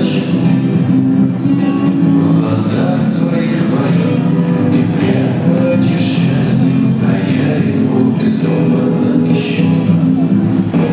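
Recorded music with strummed acoustic guitar and a steady beat, played loud and continuous.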